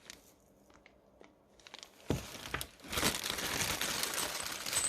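Plastic packaging handled and crinkled while accessories are unpacked: a few small clicks, a knock about two seconds in, then steady crinkling for the last two seconds.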